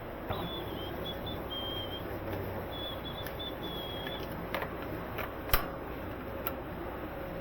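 Steady hum of pumps and water-treatment equipment running in a noisy car wash plant room. A string of short high-pitched tones sounds over it for the first four seconds, then a few sharp clicks follow, the loudest about five and a half seconds in.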